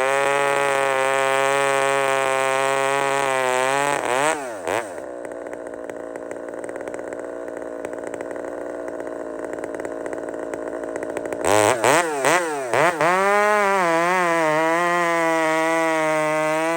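Big-bore chainsaw idling steadily, blipped up and down in quick revs about four seconds in and again a few times around twelve seconds, with a quieter stretch between.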